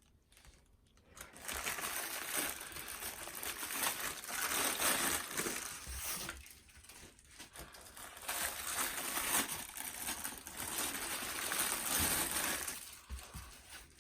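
Packaging rustling and crinkling as a goalkeeper glove is handled and pulled out of its box, in two long spells with a short pause between them.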